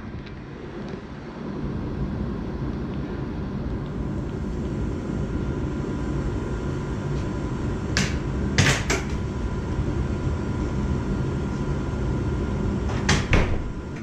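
Steady low rumble of boiler-room machinery with a faint hum, and sharp knocks about eight to nine seconds in and again near the end, the loudest sounds in it.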